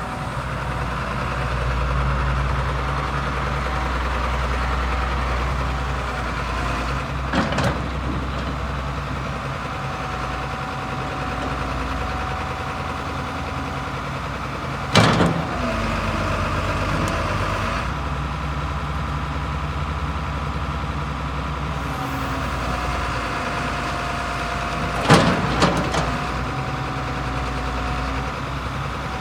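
1995 Hitachi EX270LC excavator's diesel engine running steadily, with a thin whine that comes and goes. Sharp knocks sound about a quarter of the way in, halfway, and as a double near the end.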